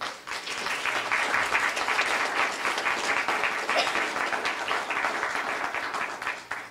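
Audience applauding, starting at once and dying away near the end.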